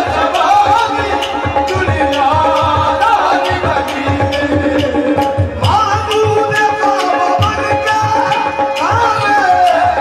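Qawwali music: a lead voice sings bending phrases over steady harmonium tones and regular tabla strokes.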